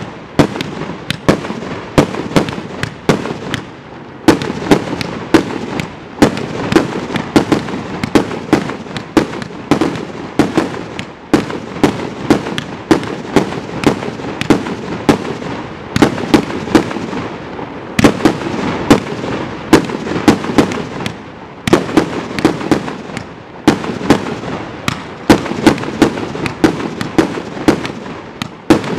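Dun Pai 200-shot compound fireworks cake firing vertical report shells in rapid succession: a steady stream of sharp bangs, several a second, over a constant wash of overlapping bursts.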